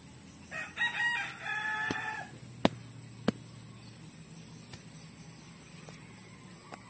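A rooster crows once, starting about half a second in and lasting under two seconds. Then come two sharp knocks a little over half a second apart, as stones are knocked into place on the ground.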